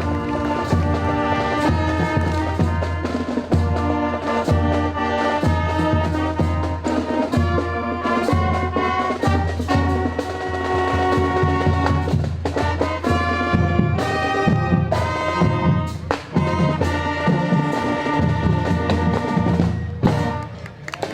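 Music with brass instruments, trumpet and trombone among them, playing sustained notes over a steady low beat.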